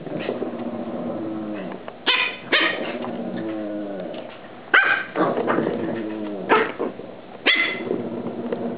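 Pekingese dogs play-fighting: a continuous growl broken by five sharp barks and yips.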